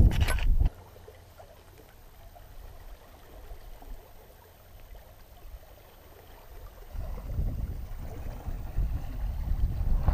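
Shallow river water trickling faintly over pebbles. Wind buffets the microphone for a moment at the start and again from about seven seconds in, as a low rumble.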